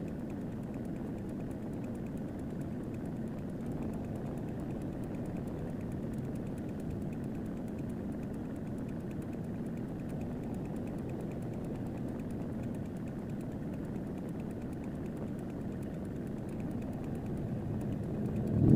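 Steady low outdoor rumble, growing louder near the end.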